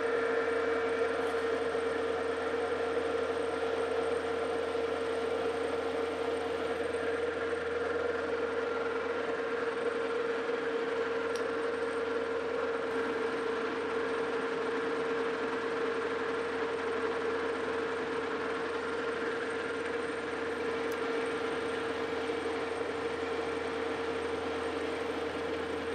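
Metal lathe running steadily while the tool turns down a shoulder on a shaft, a constant hum with one strong held tone.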